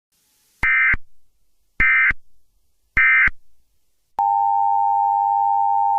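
Three short bursts of Emergency Alert System digital data tones, about a second apart, marking the end of the alert message. About four seconds in, a steady alert tone starts and holds.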